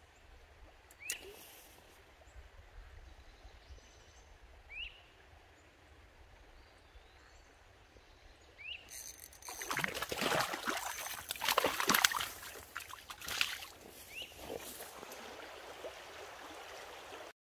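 Quiet creek-side ambience with three short, rising bird chirps. About halfway through, a louder stretch of irregular crackling and rustling clatter begins over the steady rush of stream water running over rocks.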